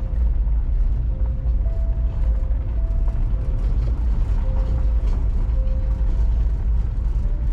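Vehicle driving: a steady low rumble of engine and road noise.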